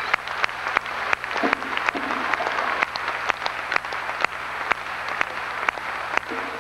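Audience applauding in a concert hall: dense clapping with individual sharp claps standing out.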